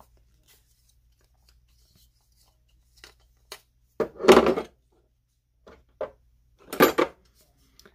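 Hard plastic knocks as a Dremel attachment and the rotary tool are set down in a moulded plastic storage case: a few faint clicks, then a louder clatter about four seconds in and a sharp knock near the end.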